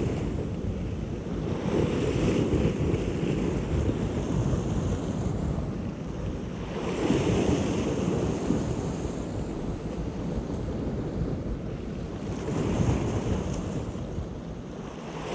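Sea swell washing against a rocky shore, the hiss of surf rising and falling in three surges about five seconds apart, with wind buffeting the microphone.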